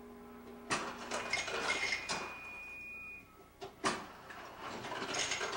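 Ice cubes dropped into drinking glasses, several hard clinks and rattles. A high steady tone sounds for about two seconds early on.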